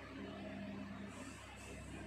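Whiteboard eraser wiped across the board in two quick strokes, a soft brushing hiss, over a steady low hum in the room.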